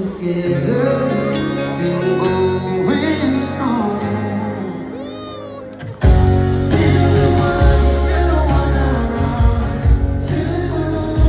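Male singer performing a slow pop ballad live with a band; about six seconds in, heavy bass and drums come in and the music gets markedly louder.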